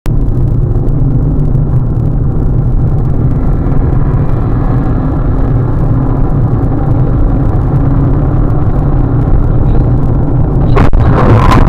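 Steady road and engine noise inside a moving car's cabin at highway speed. Near the end comes a sharp knock, then louder, rougher noise as a truck that has cut in ahead crashes.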